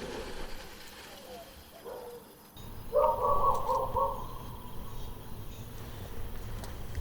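A bird calling in the forest: a short run of four or five quick, pitched notes about three seconds in, over a faint low rumble.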